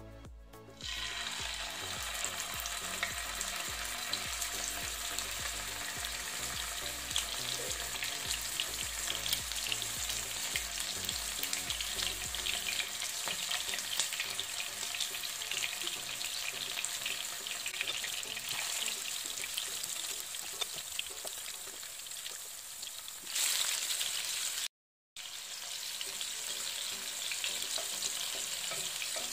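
Green-masala-coated fish shallow-frying in hot oil in a nonstick pan: a steady crackling sizzle that starts about a second in. It swells louder for about a second near the end, breaks off for a moment, then carries on.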